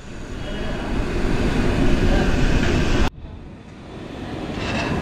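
Steady rumbling and bubbling of a large iron kadai of sugar syrup at a rolling boil over a stove burner. The noise drops abruptly about three seconds in, then builds back up.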